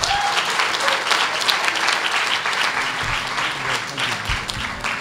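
Audience applauding, a steady run of many people clapping.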